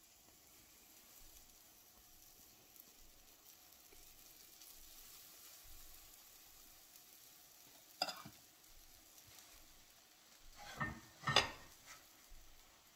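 Crêpe batter sizzling faintly in a hot nonstick frying pan as a ladle spreads it. About eight seconds in comes a knock, then near the end two louder clattering knocks as the ladle and pan are handled on the gas stove.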